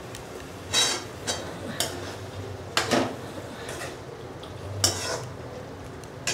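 A steel spatula scraping and clinking against a metal kadai while stirring pointed gourd in a thick spiced curd masala: a run of separate strokes, the loudest about one, three and five seconds in.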